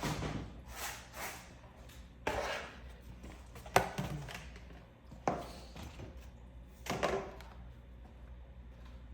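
A series of irregular thunks and knocks, six or seven of them, from items being shifted and set down while tidying a cluttered storage room. The sharpest knock comes a little before four seconds in.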